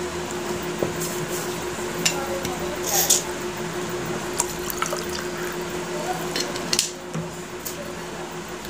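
Eating by hand from stainless steel plates: wet chewing and mouth sounds with scattered light clicks of fingers against the plates, over a steady hum.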